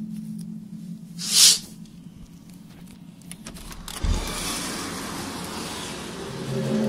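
Outdoor recording of an unexplained low droning noise: the hum drops away, a brief loud hiss sounds about a second and a half in, a low thump about four seconds in starts a rising rushing noise, and the low drone comes back near the end.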